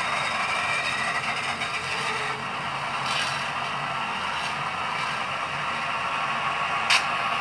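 Diesel engine idle sound from a model locomotive's sound decoder, played through its small onboard speaker: a steady, rough running sound with the locomotive standing still, and one short sharp click near the end.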